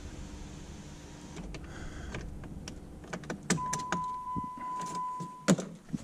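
Power sunroof on a 2006 Jeep Grand Cherokee opening: its electric motor gives a steady hum for the first few seconds, followed by clicks and knocks from the roof trim and a loud knock near the end. A steady high electronic tone sounds for about two seconds in the second half.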